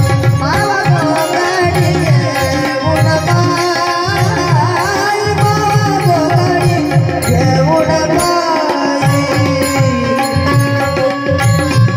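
Tabla keeping a steady rhythm under a woman's singing, with bulbul tarang accompaniment, in a Marathi folk song.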